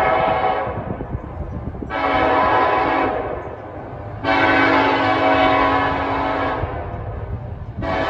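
Nathan K5LLA five-chime locomotive air horn blowing a series of blasts: one ending just after the start, a short one about two seconds in, a longer one from about four to six and a half seconds, and another starting at the very end. This is the pattern a locomotive sounds for a road crossing, heard over the low rumble of the approaching train.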